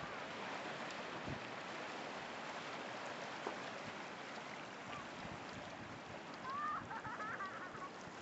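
Small sea waves washing and breaking among shore rocks at low tide, a steady rushing hiss of surf. A few short high chirping calls come in near the end.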